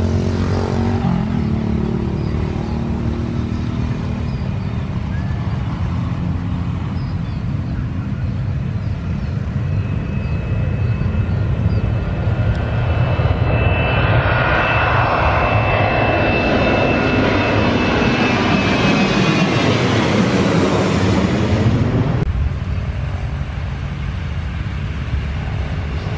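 Twin-engine jet airliner on its takeoff roll, its engine noise building to the loudest point with a steady high fan whine as it comes close, then falling in pitch as it climbs past overhead; the sound cuts off suddenly about 22 seconds in. A road vehicle's engine hum runs underneath.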